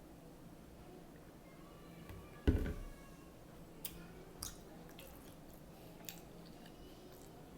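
A person chewing egg rolls close to the microphone, with a few small mouth clicks. There is a loud thump about two and a half seconds in.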